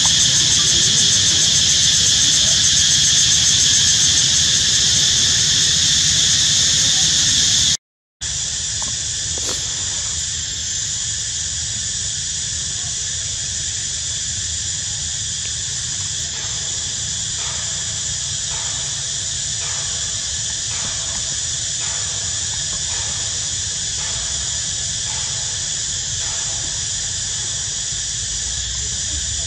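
A loud, steady chorus of insects droning at a high pitch. It cuts out briefly about eight seconds in, then carries on slightly quieter.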